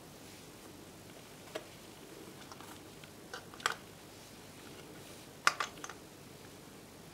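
A handful of small, sharp plastic clicks: Lego pieces knocking together and dropping onto a tabletop. There is a single click, then a pair, then the loudest cluster of clicks a little past halfway.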